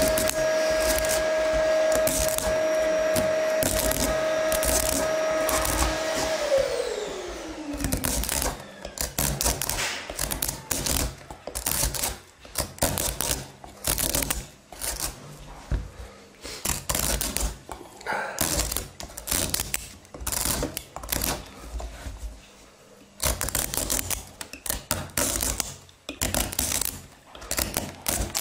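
Small kitchen knife paring the hard skin off a winter squash: irregular short scraping and cutting strokes, several a second in bursts. For the first several seconds a steady machine hum plays under it, then slides down in pitch and stops.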